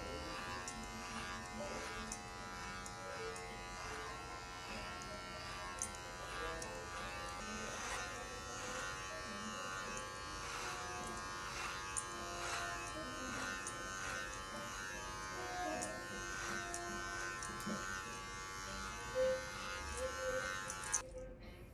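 Electric hair clippers buzzing steadily while trimming a beard, switched off shortly before the end.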